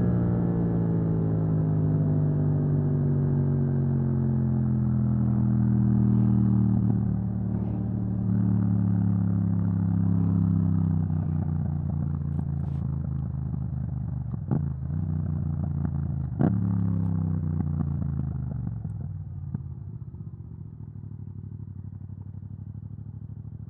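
Yamaha MT-07 parallel-twin engine with an Akrapovic exhaust, its note falling slowly as the bike slows off the throttle, with two sharp clicks midway. It then settles to a lower, quieter steady run near the end.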